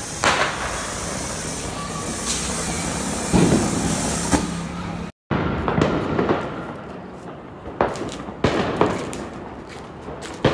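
Ground fountain firework (flower pot) hissing steadily as it sprays sparks, with a few sharp firecracker bangs over it. After a brief cut about halfway, scattered sharp firecracker bangs follow.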